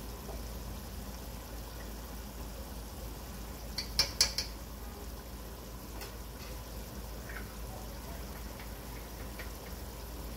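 Oil and onions sizzling steadily in an aluminium cooking pot. About four seconds in, a quick cluster of sharp clicks as a metal utensil knocks against the pot.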